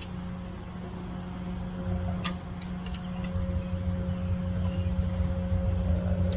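A steady low machine hum with a faint higher tone, growing a little louder, and a few short sharp clicks about two to three seconds in.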